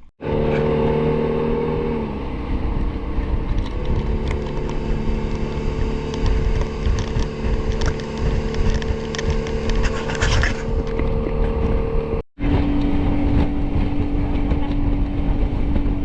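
Motor engine running steadily with a low rumble and a hum of several steady tones; the tone shifts about two seconds in, and after a brief cut near twelve seconds it carries on at a different pitch.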